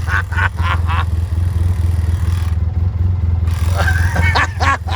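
ATV engine idling steadily with a low, even drone. Indistinct voices come over it in the first second and again near the end.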